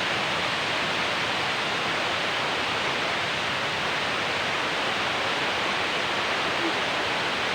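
Steady rush of a waterfall's falling water, an even unbroken noise.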